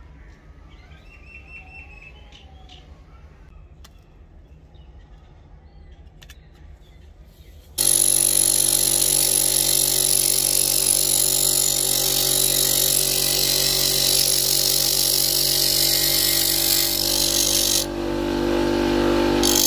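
Low background for about the first eight seconds, then a bench grinder cuts in suddenly and loudly: a steady motor hum and whine with the hissing of a steel blade being ground on the wheel. The hiss falls away about two seconds before the end as the blade comes off the wheel, while the grinder keeps spinning.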